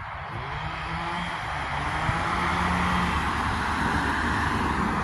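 A motor vehicle passing, its engine hum and tyre noise swelling then easing off near the end.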